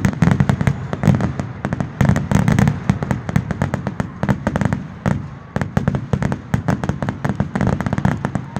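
Aerial fireworks shells bursting, with dense rapid crackling and popping, many cracks a second, easing off slightly near the end.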